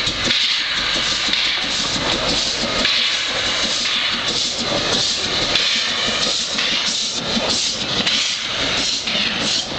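Narrow-gauge forest-railway steam locomotive working past under steam: a steady hiss of escaping steam with regular exhaust chuffs.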